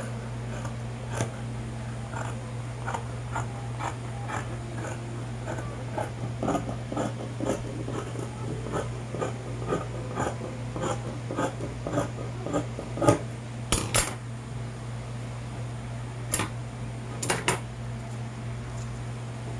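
Scissors snipping through fabric in a steady run of short cuts, about two a second, with a few louder clicks in the second half.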